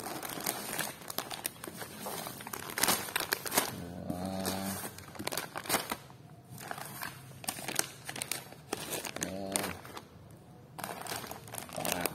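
Plastic snack packaging crinkling and rustling in irregular bursts as shrink-wrapped instant noodle packs and foil drink bags are handled and lifted out of a cardboard box.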